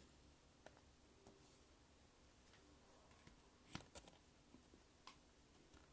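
Near silence, with a few faint taps and clicks. The loudest cluster comes about four seconds in, as a hand handles an oracle card in a metal tin card stand.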